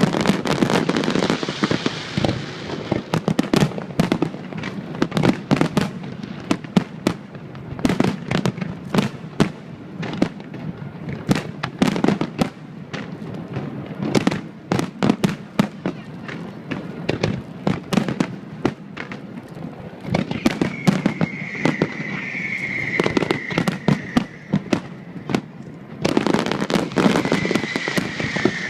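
Fireworks display: a dense, irregular barrage of bangs and crackling reports from bursting shells. A high wavering whistle joins in about two-thirds of the way through and again near the end.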